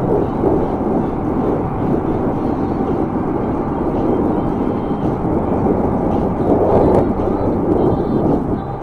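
Steady rushing wind and road noise from riding an e-bike at speed, buffeting the microphone, with traffic on the highway alongside.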